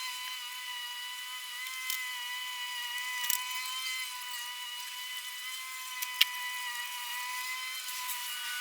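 A small electric motor whining steadily at a high pitch, wavering slightly, with a few light clicks over it.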